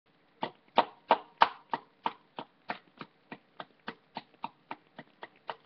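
An egg being tapped against a hard edge to crack its shell: a run of quick, sharp taps, about three a second, loudest at first and growing softer.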